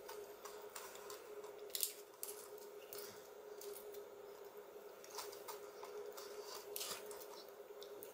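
Spoon cracking the caramelised sugar crust of a crème brûlée and scooping the soft custard: faint crunchy clicks and crackles, with one sharper click about two seconds in, over a faint steady hum.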